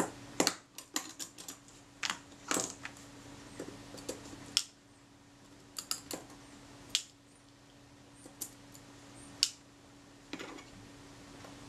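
Small metal tools clicking and tapping against the tiny steel and brass parts of a Retina IIa's dismantled leaf shutter: sharp, irregular clicks as parts are picked at and lifted out.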